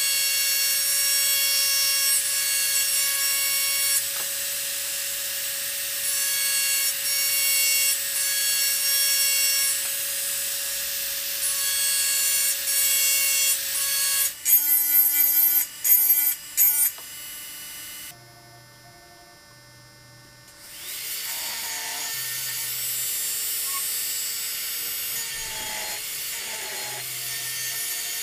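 Handheld rotary engraving tool running at high speed with a steady high-pitched whine as its burr grinds into the glass. About 15 seconds in it stutters in a few short bursts, goes quieter for a few seconds, then runs again from about 21 seconds, its pitch wavering as it cuts.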